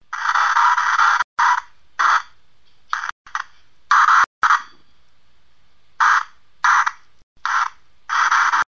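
Chopped bursts of hissing static, about eleven of them, each cut on and off abruptly with brief dead gaps between; the first runs over a second, the rest are short. It is the kind of sweep noise that a spirit box makes for picking out EVP voices.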